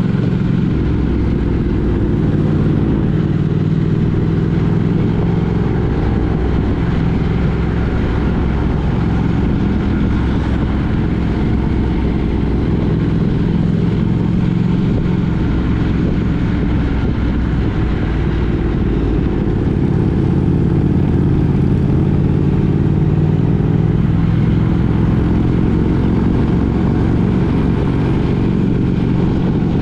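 Engine and road noise of a moving road vehicle, running steadily with its engine note drifting slightly up and down.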